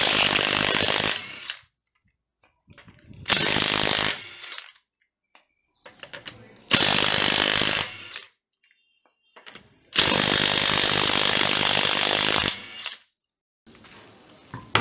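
DeWalt 18V cordless impact wrench hammering loose a car wheel's lug nuts in four separate bursts. The last and longest runs about two and a half seconds.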